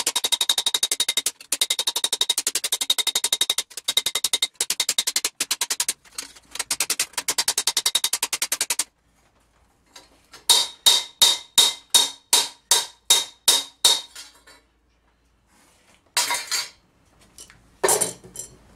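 A hammer beating a steel gauntlet plate over an anvil stake: a fast run of ringing metal blows, a pause of about a second and a half, then about ten slower ringing blows at roughly three a second. Two separate heavier knocks follow near the end.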